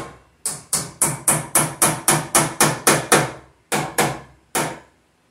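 Hammer driving nails into a wooden wall stud to fasten a blue plastic electrical outlet box: a quick run of about a dozen blows, about four a second, then two slower final strikes.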